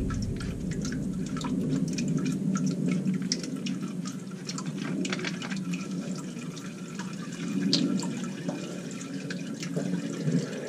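Automatic transmission fluid draining from a ZF 8-speed transmission pan, running in thin streams and dripping into a plastic tub: a steady trickle with many small scattered drips.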